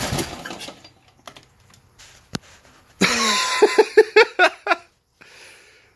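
Briggs & Stratton 17 hp OHV lawn tractor engine, with the back of its block blown open and the carburetor knocked loose, running and then shutting off, dying away within the first second. A few light clicks follow, then a short burst of laughter.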